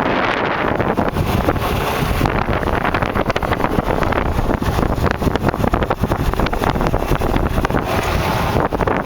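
A Kawasaki KLX dirt bike coasting over rough ground with its engine off: wind buffeting the microphone over a constant rattle of many small knocks and clicks from the bike jolting on the bumps.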